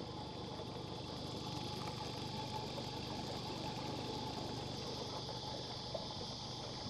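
A small boat's motor running low and steady as the boat is moved a short way, with insects buzzing steadily in the background.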